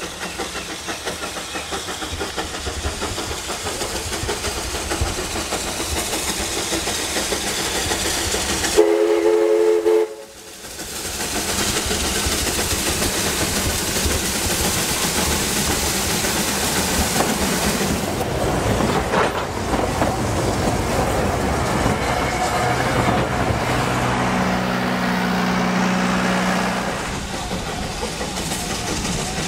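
Steam locomotive approaching with its train, its sound growing louder. About nine seconds in it sounds its whistle, a short, loud chord of a few tones. After that the engine and coaches run past with heavy rail and wheel noise.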